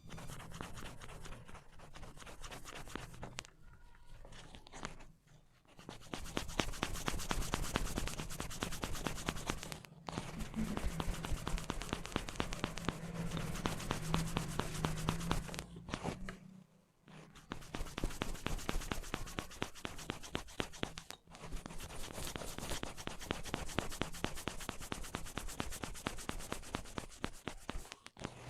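Fingers rubbing and working through hair in a hair-cracking head massage, a fast, dense crackling rub. It is softer at first, grows louder about six seconds in, and stops briefly a few times.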